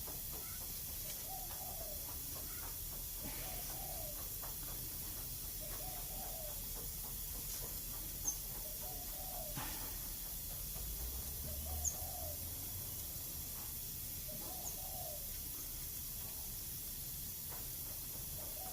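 A bird's short, low call repeated about every two seconds over a steady background hiss, with a couple of faint clicks in the middle.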